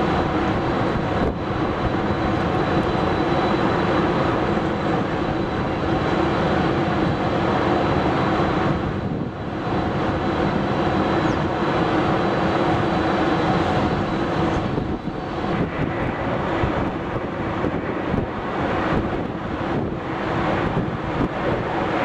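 Jet engines of a taxiing Boeing 747-400, a steady rumble with a thin high whine that fades out about fifteen seconds in.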